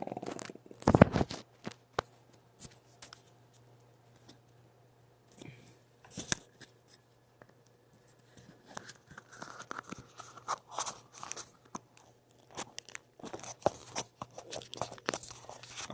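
Small plastic camera parts being handled: scattered clicks, taps and light scraping as a replacement glass front assembly is fitted onto the Caddx Orca camera body, with a sharper knock about a second in.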